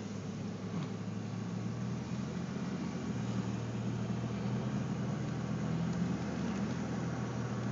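Steady running noise inside a moving car's cabin: a low engine hum under even tyre and road noise.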